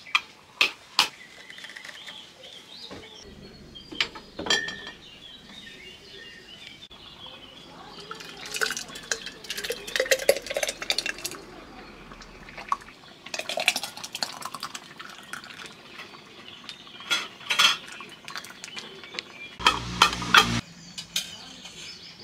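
Metal utensils and cookware clinking and knocking in scattered bursts during cooking, with a heavier knock near the end.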